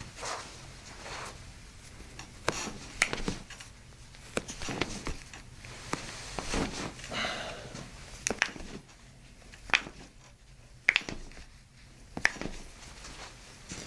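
Toe joints popping under a chiropractor's manipulation: a series of sharp, separate cracks and clicks at irregular intervals, the loudest about ten and eleven seconds in, with soft handling rustle between them.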